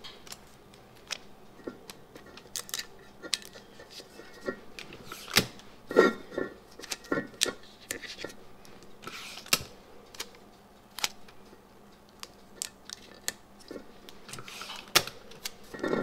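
Sublimation paper and heat-resistant tape being handled on a tumbler: scattered light clicks, crinkles and short rasps as the paper is folded down and taped, with a few longer rustles along the way.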